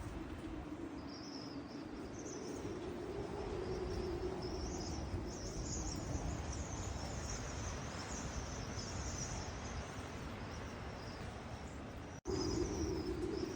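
Strong gusty wind rumbling over the microphone, with faint high chirping above it. The sound breaks off abruptly about twelve seconds in and picks up again louder.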